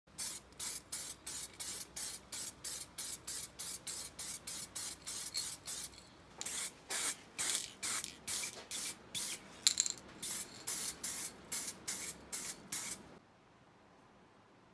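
Aerosol spray paint hissing out in rapid short bursts, about three a second, as metal parts are given a coat of paint. The bursts stop abruptly near the end, leaving faint room noise.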